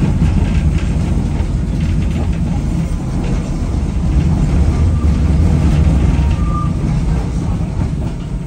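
W8-class tram running along the street, heard from inside its wooden saloon: a steady rumble of wheels on rail and running gear, with a brief faint squeal about six seconds in.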